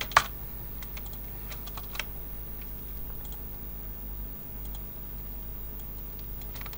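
Computer keyboard clicking sparsely, with one sharp loud click just after the start and another about two seconds in, over a steady low hum.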